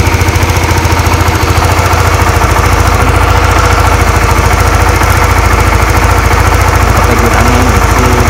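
Honda RS150R's single-cylinder four-stroke engine idling steadily with an even, rhythmic beat. The idle speed is being set on a newly fitted manual idle air control valve, because the original idle ran too high.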